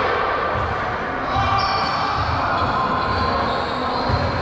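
Basketball bouncing on a gym floor during a game: irregular low thumps, with a few short high squeaks above them.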